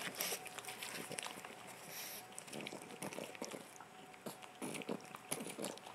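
A pug gnawing at a marrow bone: faint, irregular small clicks.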